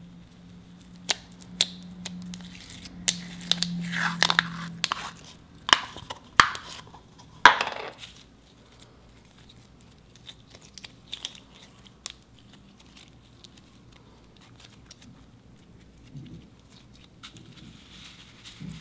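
Clear glitter slime being peeled and pulled out of a plastic tub by hand, with sticky crackling and sharp popping clicks, loudest and densest in the first eight seconds. It then goes quieter, with only scattered soft clicks as the slime stretches down into a bowl of foam beads.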